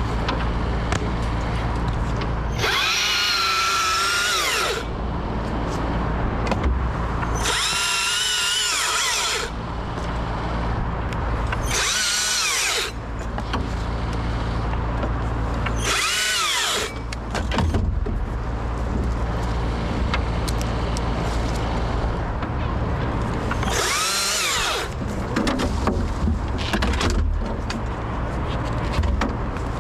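Husqvarna T542i XP battery-powered top-handle chainsaw whining in five bursts of a few seconds each as it cuts, its pitch rising and falling, over a steady low engine hum.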